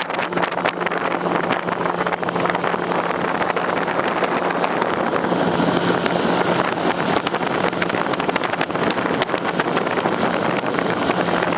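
Bass boat's outboard motor running steadily under way, a constant low engine note beneath a loud rush of wind and water noise.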